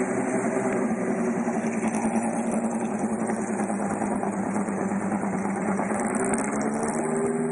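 Ferrari 458 Grand-Am race car's 4.5-litre V8 running steadily at low revs as the car rolls slowly, its pitch wavering only slightly.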